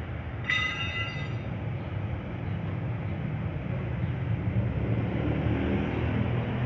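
Steady low mechanical rumble, with a brief high-pitched tone about half a second in that lasts about a second.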